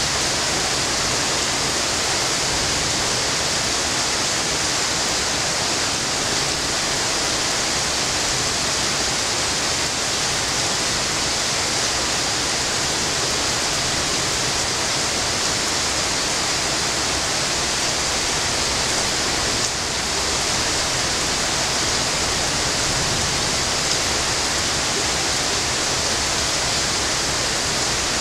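Rain falling steadily, a dense even hiss that stays constant throughout.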